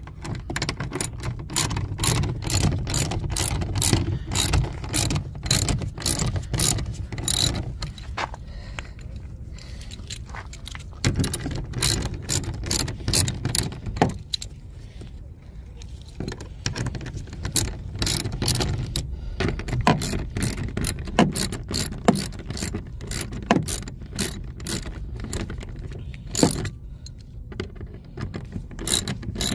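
Ratchet wrench with a 10 mm socket clicking in quick runs while backing out the bolts of a car door's window regulator motor, with a few short pauses between runs.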